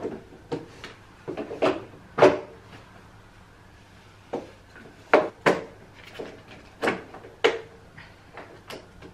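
Irregular sharp plastic clicks and knocks, about a dozen, as the parts of a Philips AquaTrio cordless wet-and-dry vacuum are handled and fitted together at its dock.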